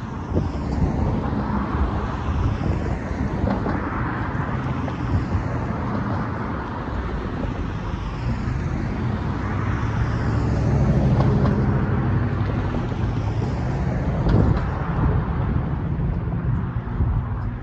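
Road traffic passing: cars and a pickup truck driving over the railroad grade crossing, a steady tyre and engine noise that swells about ten to twelve seconds in.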